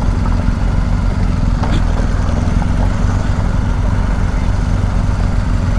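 Adventure motorcycle's engine running steadily at low revs while riding a rough dirt track, with wind and road noise on the rider's camera.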